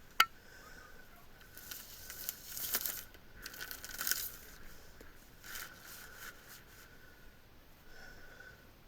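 A sharp click just after the start, then three bursts of crinkling, rustling noise as someone moves about in the space above a drop ceiling.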